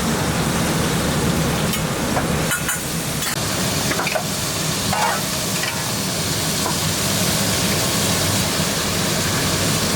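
Food frying and sizzling in hot oil in a commercial kitchen, over a steady low hum, with a few light clinks of metal utensils a few seconds in.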